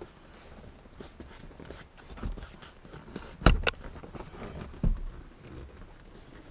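Handling knocks and clunks from a car seat being tilted and shifted: a few separate knocks, the loudest a double clunk about halfway through, over low rustling.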